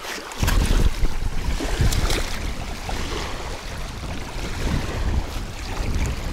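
Small waves lapping on a pebbly shoreline, with wind buffeting the microphone in a heavy low rumble from about half a second in.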